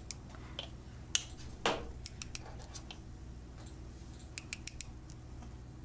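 Light clicks and taps from handling small nail-art tools, a glitter jar and a nail-tip holder: scattered single ticks, then a quick run of about five sharp clicks about four and a half seconds in, over a faint steady low hum.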